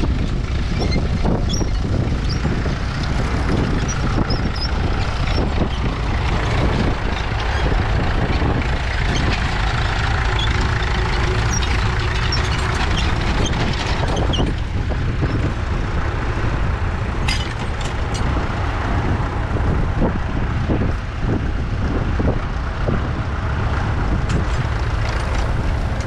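Vintage Massey Ferguson tractor engine running steadily while pulling a trailed plough through stubble.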